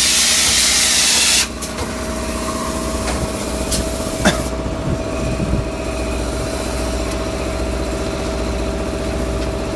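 Polyurea spray gun hissing as it sprays the hull, then cutting off suddenly about a second and a half in. After it a steady engine hum with a held tone runs on, with a sharp click about four seconds in.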